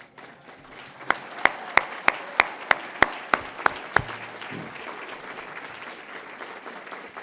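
Audience applauding. A run of about ten louder, sharp claps at roughly three a second stands out from about a second in until about four seconds in.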